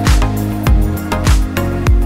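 Background music with a steady kick-drum beat, a little under two beats a second, over sustained held notes.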